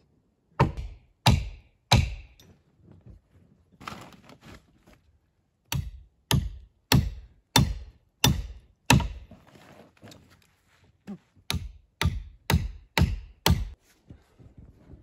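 Repeated heavy thunking blows, like a tool striking wood: three strikes, a pause, a run of six, then a run of five, each about two-thirds of a second apart.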